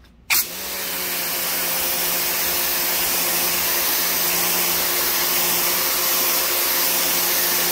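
Rock&Rocker HWY12P 1500 W electric pressure washer starting up about half a second in and then running steadily, its motor and pump humming under the hiss of a wide 40-degree fan spray hitting concrete.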